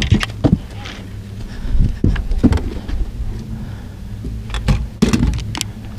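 Boat motor running steadily at trolling speed, with scattered knocks and rattles of gear being handled on the boat.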